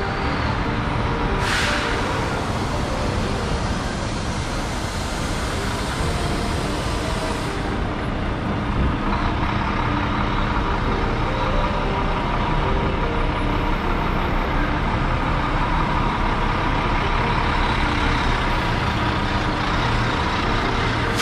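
City street traffic dominated by a heavy vehicle's engine running steadily close by, with a short hiss about a second and a half in.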